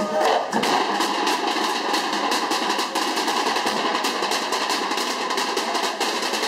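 Percussion group drumming with sticks in a fast, busy rhythm, the strokes coming thick and close together.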